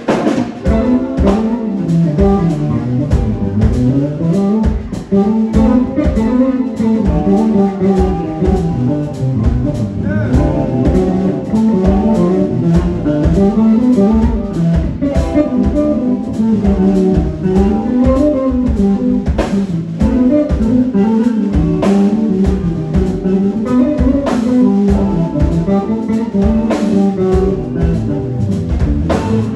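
Electric bass solo played live: a fast melodic bass line winding up and down, with a drum kit keeping time behind it.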